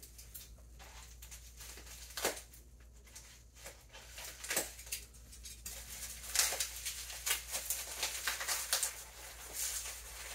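Packaging wrap being pulled off a small item by hand: irregular rustling and crinkling with scattered sharp crackles, busier in the second half.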